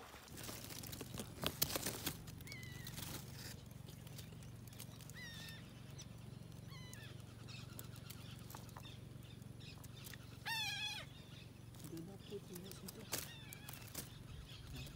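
Scattered bird calls: a few short, thin downward-slurred notes, then one louder, wavering call about ten seconds in, over a steady low hum. A few sharp clicks come about a second and a half in, the loudest moments.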